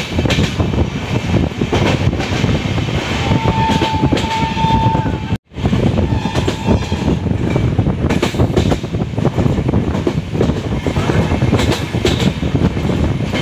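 Passenger train running at speed, heard from an open coach door: loud, steady wheel and carriage clatter with wind noise. About three to five seconds in, the locomotive horn sounds twice as short high tones. The sound breaks off for an instant just after that.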